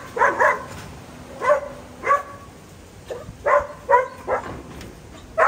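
Small guard dog barking at strangers, about eight short, sharp barks with gaps between them, some coming in quick pairs.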